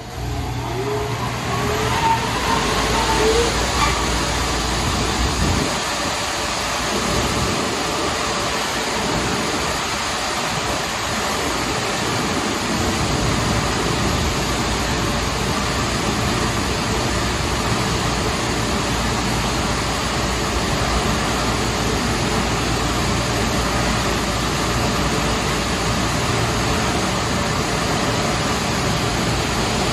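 Superior Sidetrac 700 touch-free car wash running, a loud, steady rush of spraying water or drying air over the car, with an uneven low rumble for several seconds early on.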